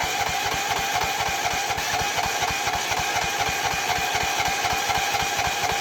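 Small gasoline engine of a Rippa Mule Trac mini excavator running steadily with an even firing beat, just after catching on a crank. It is a hard-starting engine that the owner says doesn't want to run and believes is failing.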